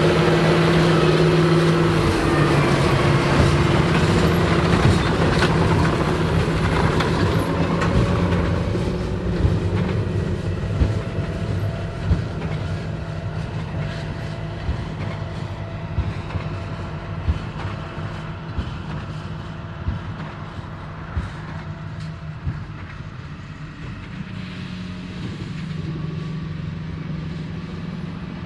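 John Deere 8530 tractor's six-cylinder diesel running under load while pulling a Krone BigPack large square baler, loud at first and then fading as it moves off, growing louder again near the end. Occasional sharp knocks from the working baler stand out in the middle.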